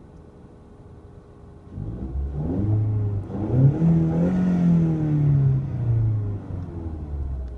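2016 Ford Mustang EcoBoost's turbocharged four-cylinder engine, on its stock exhaust, idling, then revved once about two seconds in, the pitch climbing and dropping back to idle near the end.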